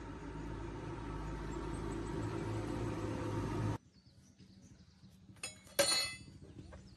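A steady low rumbling noise cuts off abruptly a little past halfway. Near the end comes a sharp metallic clink that rings briefly, as of metal tools or engine parts knocked together.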